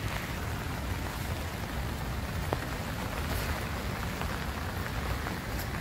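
Steady rain falling, an even hiss with a few light ticks.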